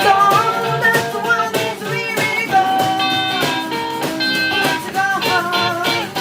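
Live rock band playing a song: electric guitar lines over drums.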